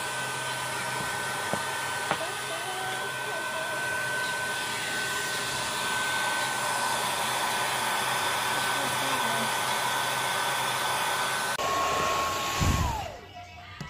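Handheld hair dryer blowing steadily with a high motor whine. Near the end the sound drops, and the motor's whine falls in pitch as it is switched off and spins down.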